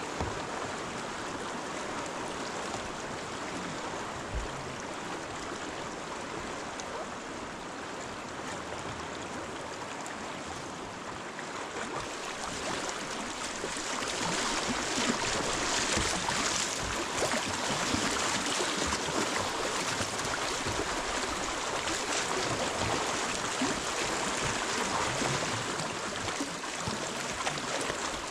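River water rushing and splashing in a steady rush that grows louder and brighter about halfway through.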